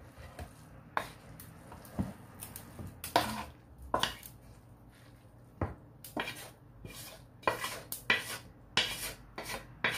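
Wooden spatula scraping and knocking against a wok as cooked noodles are pushed out of it into a plastic tub: an irregular series of short scrapes and clacks.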